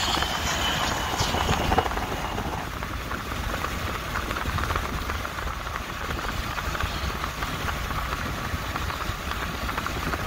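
Road noise of a car driving along: a steady low rumble with a dense rush of fine ticking from the tyres, and a faint high whine in the first couple of seconds.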